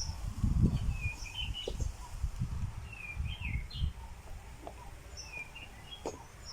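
A bird calling outdoors, repeating a short chirping phrase of quick falling and rising notes roughly every second and a half, over an uneven low rumble.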